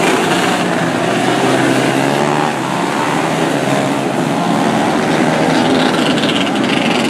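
A field of 125cc micro sprint cars running together on a dirt oval, many small engines heard at once. Their pitches overlap and drift up and down as the cars rev through the turns.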